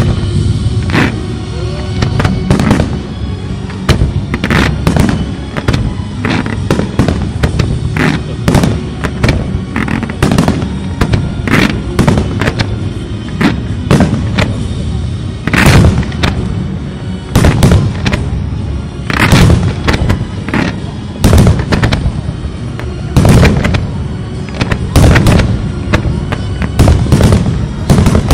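Aerial firework shells bursting one after another in a steady run of sharp bangs, about one or two a second, with the loudest bursts in the second half.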